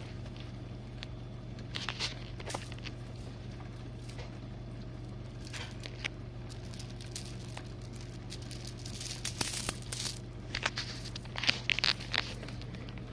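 GE Profile dishwasher running steadily with a low hum, with scattered crackles and clicks that grow busier in the second half.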